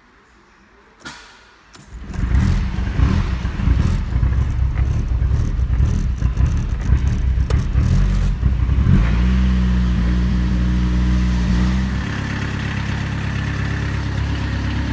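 Peugeot 306 D Turbo's 1.9 turbo-diesel engine starting for the first time after a timing belt and water pump job: a click about a second in, then it fires about two seconds in. It runs unevenly at first and settles to a steadier idle from about nine seconds in.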